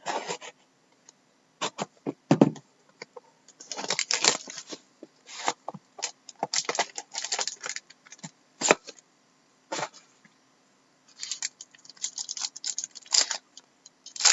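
A trading-card pack wrapper being crinkled and torn open in irregular bursts of crackling with short pauses between, a tough pack that takes several tries to rip.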